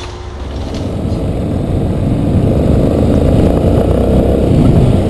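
A motorcycle engine running, growing steadily louder over several seconds and easing off near the end.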